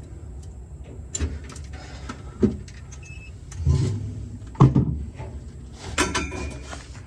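Handling noises from freezer repair work: a series of irregular knocks and clatters of parts and tools being handled, about five in all, over a steady low hum. There is one short faint electronic beep a little after the middle.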